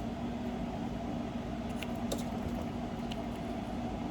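Steady room hum, like a fan or air conditioner running, with a few faint clicks and taps from small items being handled.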